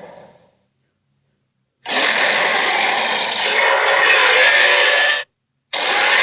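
Harsh, noisy roar sound effects for a made-up dinosaur-like monster: one roar fading out at the start, about a second of silence, a loud roar lasting about three seconds, and after a brief gap a second loud roar starting near the end.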